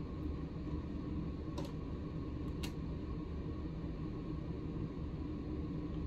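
Steady low hum of room noise with a faint steady tone, broken by two light clicks about a second apart in the first half.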